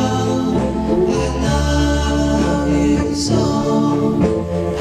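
1962 doo-wop record: a vocal group singing held close harmonies over a bass line, with a bright hit about three seconds in.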